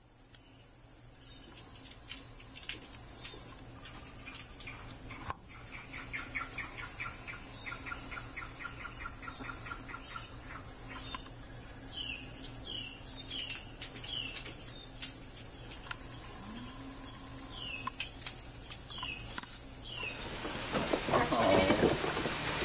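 Birds calling in the open: first a fast run of short repeated notes, then clear falling chirps, each a quick downward note, about two a second in two short series. Near the end the sound gets louder and busier with animal calls.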